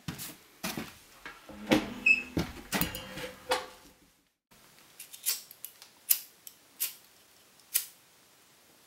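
A few knocks and short squeaks, then, after a brief pause, a handful of sharp crinkles as paper is crumpled and stuffed among kindling in a wood stove's firebox.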